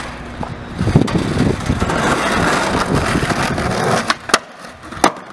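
Skateboard wheels rolling over rough, cracked asphalt, a steady rumble building up as the rider approaches, then a few sharp clacks about four seconds in as the board hits the ledge and comes off it.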